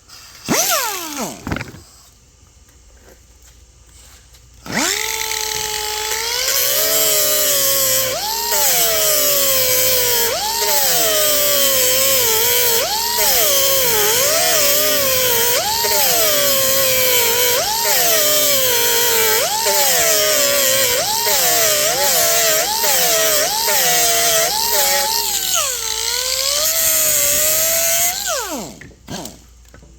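Pneumatic air grinder grinding off aluminum mounting tabs on a headlight housing. After a short blip whose pitch falls off, the grinder runs for about 24 seconds, its whine dipping and recovering about once a second as it bogs under load against the metal, then spins down near the end.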